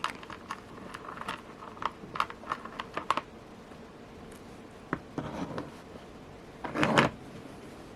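A beaded bracelet being handled, with scattered small clicks and light scratches as the porcelain beads and metal toggle clasp knock together. A louder brief rustle comes about seven seconds in.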